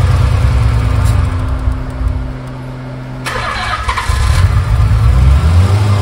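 1994 Nissan 300ZX's 3.0-litre non-turbo V6 running at idle just after starting, with a steady low note. It dips quieter a little past two seconds in, and a click follows about three seconds in.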